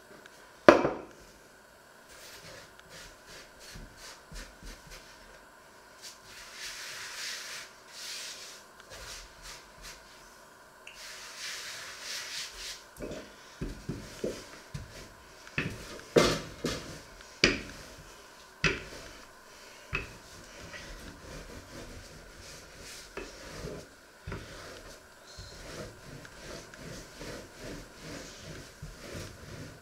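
Dough being rolled and handled on a floured wooden worktop: a wooden rolling pin rubbing and rolling over the dough, with scattered wooden knocks, the sharpest about a second in and a cluster in the middle.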